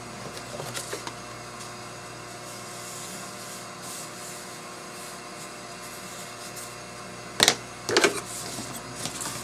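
Pencil drawing on a sheet of craft foam, faint scratching and rubbing strokes over a steady room hum, then a couple of sharp clacks near the end as a hand reaches for the scissors and handles things on the table.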